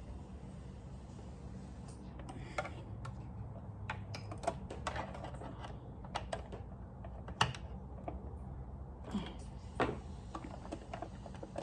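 Irregular light clicks and taps of a screwdriver and small parts on a Brother sewing machine as its parts are tightened back in place, over a steady low hum.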